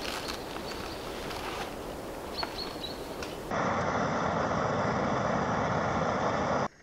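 Portable camping stove burning under a kettle: a loud, steady rush of flame that starts suddenly about halfway through and cuts off sharply near the end. Before it there is faint outdoor background with a few short high chirps.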